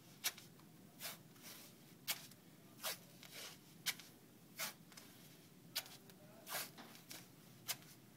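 White athletic tape being pulled off the roll and torn into strips as it is laid across a shin: a series of short rasps, about one a second.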